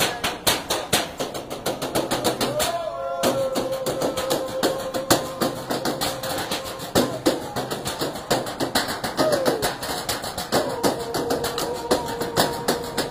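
Street-percussion drumming on metal trash cans with drumsticks: a fast, steady rhythm of sharp metallic hits. Twice a long held note sounds over the drumming, about three seconds in and again near the end.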